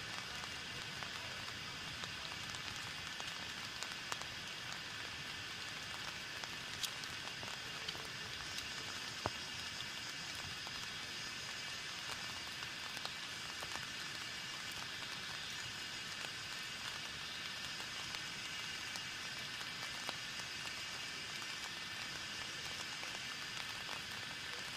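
Steady rushing hiss of falling water, even throughout, with a few faint scattered ticks.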